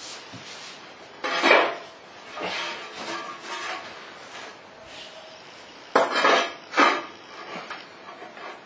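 A large porcelain floor tile being handled and set down into fresh tile adhesive: several bursts of hard ceramic scraping and clinking, loudest about a second and a half in and again around six and seven seconds in.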